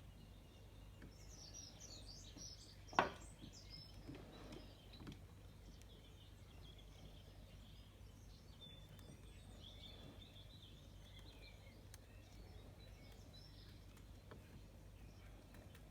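Faint bird chirps and calls against low background noise, with a single sharp click about three seconds in.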